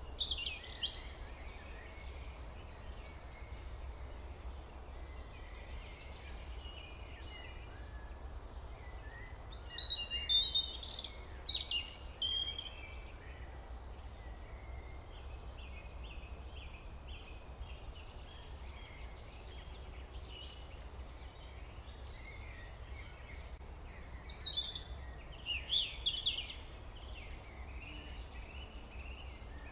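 Birds chirping faintly in three short flurries of calls, with softer repeated chirps in between, over a low steady hum.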